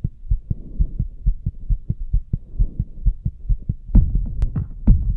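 Low, even thumping pulse, about four beats a second, with a faint hum over it; sharper, louder hits join about four seconds in as the soundtrack's beat builds.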